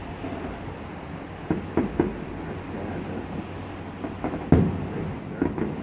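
Distant fireworks bursting: a string of dull bangs in three small clusters, the loudest about two-thirds of the way through, over a steady low rumble.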